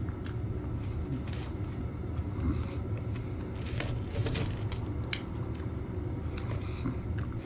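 Knife and fork cutting into a burger on a plate, with scattered short clicks and scrapes of cutlery and a few eating noises, over a steady low hum.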